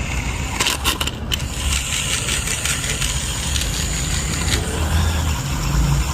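Car engine running with a steady low rumble, with a few sharp clicks about a second in.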